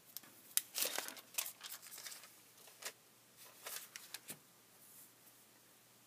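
A sheet of tracing paper rustling and crinkling as it is handled and laid flat on a paper worksheet, in an irregular string of short crackles.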